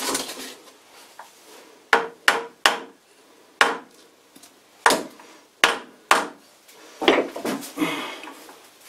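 Metal lathe parts knocking and clinking as the step pulley and spindle parts of a lathe headstock are pushed and turned by hand: a series of sharp separate knocks, then a rougher scraping rattle near the end.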